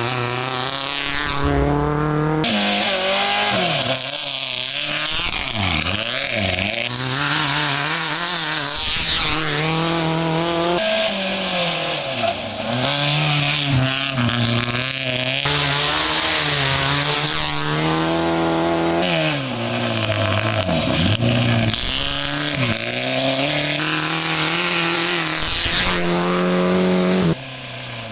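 Rally cars passing at speed on a gravel stage: high-revving engines climbing and dropping in pitch through gear changes, over a hiss of tyres and loose gravel. Several passes follow one another, joined by abrupt cuts.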